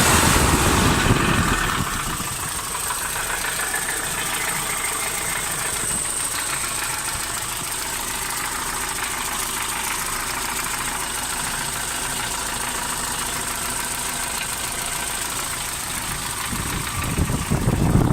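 UMZ-4216 inline-four petrol engine running at idle with a knock. It is louder for the first two seconds and again briefly near the end.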